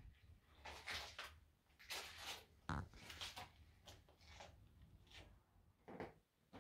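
Faint, irregular footsteps scuffing and crunching over broken plaster and debris on a wooden floor, with one sharper knock a few seconds in.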